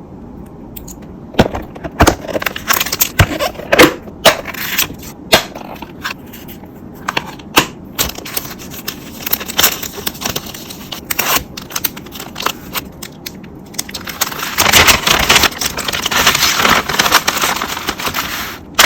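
Packing an order by hand: scattered sharp taps, clicks and crinkles of packaging being handled, then about four seconds of continuous crinkling near the end.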